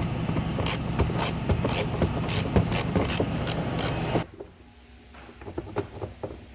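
Ratchet wrench clicking quickly as it turns out a subframe bolt. It runs for about four seconds, then stops suddenly and leaves only a few faint clicks and taps.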